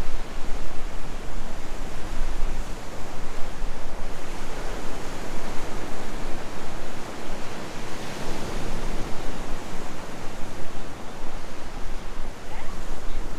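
Steady rush of ocean surf and wind, with wind rumbling on the microphone.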